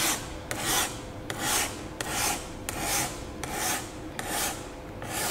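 A small hand file rasping along the top edge of ceramic window tint film on a car's door glass, shaving off the film's overhang, in about seven even strokes.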